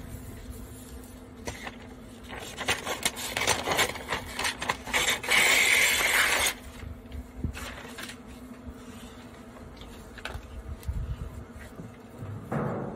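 Handling noise close to the microphone: rubbing and scraping with scattered clicks, loudest for about a second and a half just past the middle, then quieter rustling.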